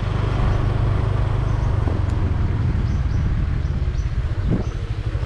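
Motorbike engine running steadily while riding, with wind and road noise; the engine note eases off near the end.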